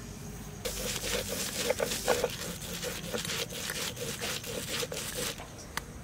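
Stone roller worked back and forth over a sil-pata grinding slab, crushing wet basak (Malabar nut) leaves into a juicy paste: a long run of close, scraping strokes that starts about half a second in and stops about a second before the end.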